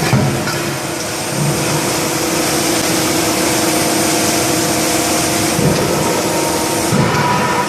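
Steady drone of a CNC hydraulic die forging hammer and its hydraulic unit running, with a few dull thumps scattered through it.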